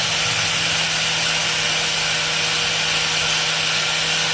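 Handheld power tool running steadily with a constant hum and a high hiss, used to clean rust off an e-bike hub motor's stator coils.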